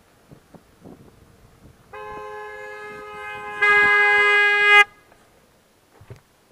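A car horn sounds for about three seconds, steady at first, then much louder with a second tone joining for its last second before cutting off sharply.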